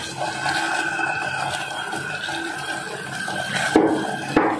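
Water boiling in a steel saucepan on a stove, a steady bubbling hiss. A couple of sharp knocks come near the end.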